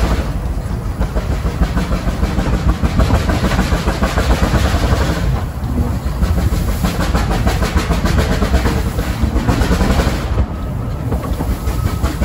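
Vale of Rheidol Railway narrow-gauge steam train climbing under way, heard close behind the locomotive from an open carriage window: steady running noise of the engine working, with wheels clattering on the rails.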